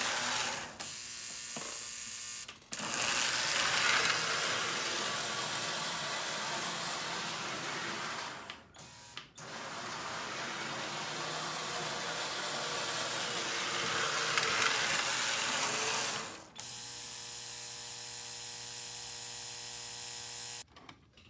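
Lionel #51 Navy Yard switcher, a motorized toy train unit, running on O-gauge track after repair and cleaning: a continuous whirring of its small electric motor and gear drive, with a brief gap about nine seconds in. From about sixteen seconds a steadier buzzing hum takes over, and it stops near the end.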